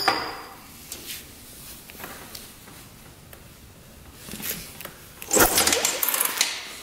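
A click, then about five seconds in a short, rapid mechanical clatter lasting about a second: the 1974 Honda CB360's twin-cylinder engine being kicked over during a spark check.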